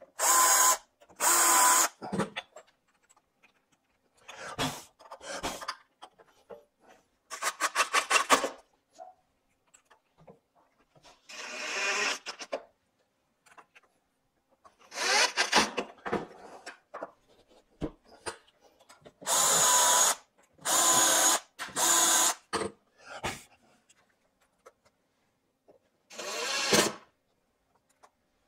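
Cordless drill/driver driving steel screws into a drop-leaf table hinge, in short bursts of a second or two with pauses between, mixed with handling of the hinge and screws.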